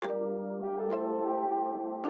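Intro music: struck, ringing chord notes, a fresh chord about a second in.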